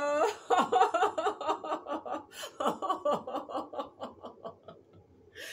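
A woman's held vowel sound, rising in pitch, breaks into a rapid run of laughter, about five pulses a second, that fades out over about four seconds.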